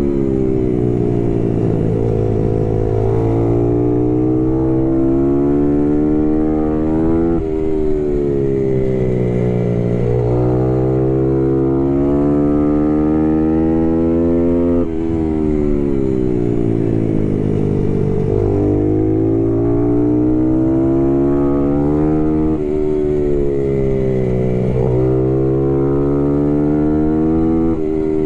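Small race motorcycle's engine close to an onboard camera, climbing in pitch under throttle, then stepping down sharply at several gear changes and sagging as the bike slows for corners.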